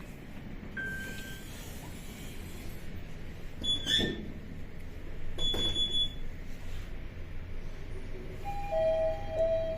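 Mitsubishi passenger lift travelling down, a steady low hum of the car in motion with two clunks partway through. Near the end comes the arrival chime, steady tones stepping down in pitch.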